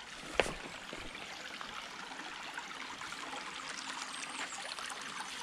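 Mountain stream flowing steadily, with one short sharp knock about half a second in.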